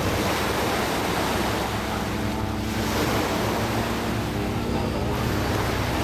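Ocean surf washing on the shore with wind buffeting the microphone, a steady rushing noise over a low, steady hum.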